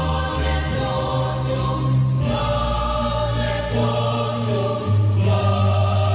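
Slow, solemn choral music: voices hold long chords over a low drone, and the chord changes every second or two.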